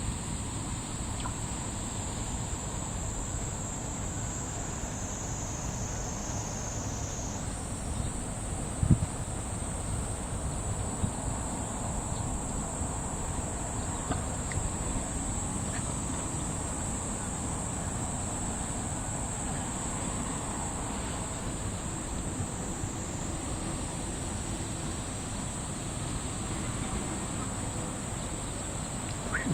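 Steady high-pitched chorus of summer insects, with a low rumble of wind beneath it and one short knock about nine seconds in.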